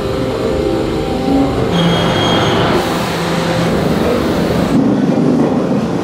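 Electric passenger train running: a steady rumble of wheels on rails, with faint whining tones from the drive coming and going.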